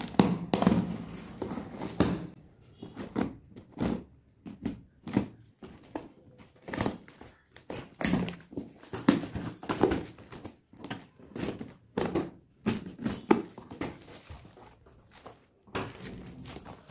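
A small knife cutting and scraping through packing tape on a cardboard parcel, a run of short irregular scrapes, rips and knocks; near the end the cardboard flaps are pulled open.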